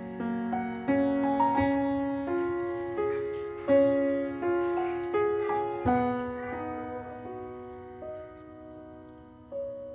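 Background piano music: single notes and chords struck at a gentle pace, each ringing and fading, growing sparser and quieter toward the end.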